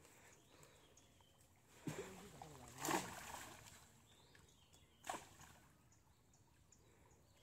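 Water splashing as a cast net is hauled and worked by hand in a shallow pond: a sharp splash about three seconds in and a shorter one about five seconds in, over a quiet background.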